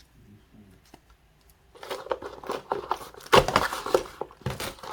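Packaging being crinkled and torn open by hand, starting after a quiet second and a half and running as a dense crackle, loudest a little past the middle.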